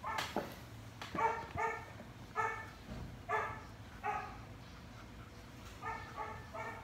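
Small long-haired dog giving short, high-pitched whimpering yips, often in pairs or threes, about a dozen in all, while its fur is handled; a few sharp clicks near the start.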